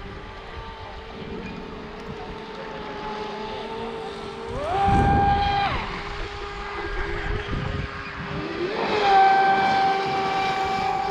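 Electric RC racing boats' motors whining: one holds a steady pitch while another surges up sharply in pitch and loudness twice at full throttle, with a rush of water noise. The first surge falls back after about a second; the second holds to the end.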